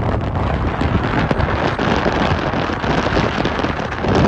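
Strong sandstorm wind buffeting the microphone: a loud, steady rush that swells briefly near the end.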